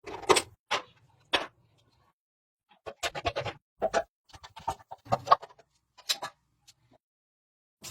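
Irregular knocks, clinks and scrapes from hand work on metal parts, with a pause of about a second near the start.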